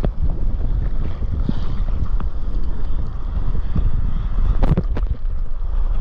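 Wind buffeting an action camera's microphone at water level, over the rush and splash of whitewater foam from a broken wave. A brief sharp knock or splash stands out about four and a half seconds in.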